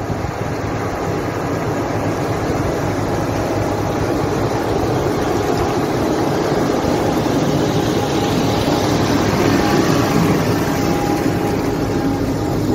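Heavy diesel beet-harvesting machinery running steadily under load, growing gradually louder, with a faint whine above the engine noise.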